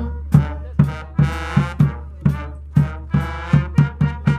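Brass band playing an upbeat tune, horns over a steady bass drum beat of about two strikes a second.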